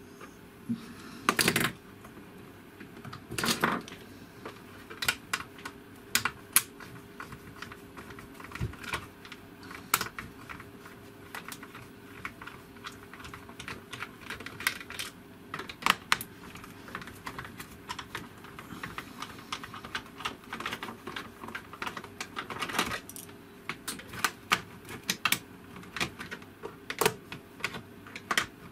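A screwdriver clicks and scrapes against the hard plastic base of a Daewoo SDA1247 as rubber bungs are prised out and screws are worked loose. The taps come at an irregular pace, with a couple of longer scrapes in the first few seconds.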